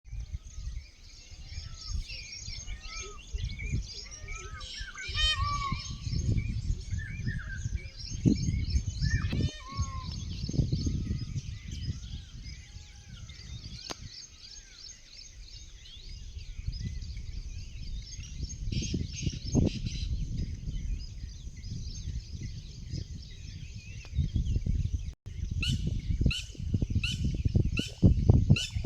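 Many wild birds chirping and whistling together over a low, uneven rumble. Near the end one bird repeats a sharp call about twice a second.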